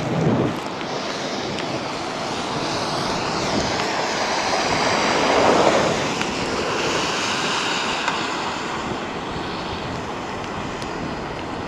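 Heavy rain and hail coming down hard on and around a car, a dense steady roar that swells to its loudest about five to six seconds in.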